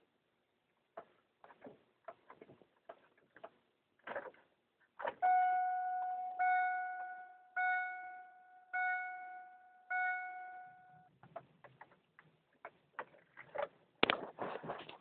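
A 2000 Pontiac Grand Prix GT's interior warning chime sounding five times, about a second apart, a steady pitched ding each time. Scattered light clicks and knocks come before and after it, with a louder cluster of clicks near the end.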